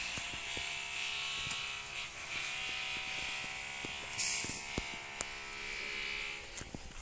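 SMK SM350 tiller's 7 HP petrol engine running at a steady idle, a even buzz with a few sharp clicks over it, fading out near the end.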